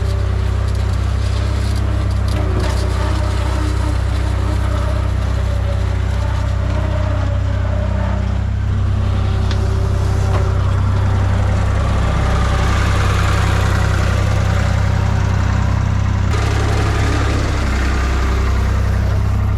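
Skid steer's engine running steadily under work, with scattered cracks and scraping in the first few seconds. A rougher, noisier layer joins in about halfway through.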